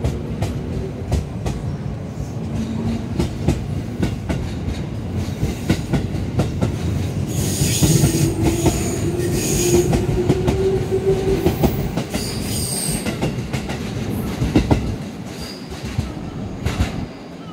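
JR 221 series electric train running past the platform, its wheels clicking over rail joints throughout. About halfway through, high-pitched wheel squeal and a slowly rising whine come in, and the sound eases off near the end.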